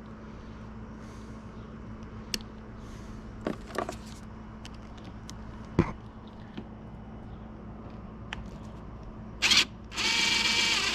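Small metal clicks and taps of a battery terminal screw being fitted, then near the end a loud whirr of about a second and a half, most likely a cordless driver running the negative terminal screw tight on the dirt bike's battery. A steady low hum sits underneath.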